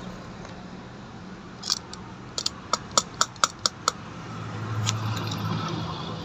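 A quick run of sharp plastic and metal clicks and taps from handling a car's distributor cap and its spark-plug leads while they are taken off for cleaning. A low steady hum of traffic or engine sits underneath and swells near the end.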